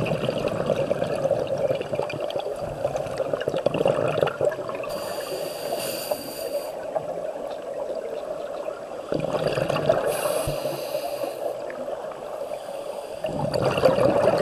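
Scuba regulator breathing underwater: a slow cycle of bubbly gurgling rushes on each exhale, with a thinner hiss on the inhales between them.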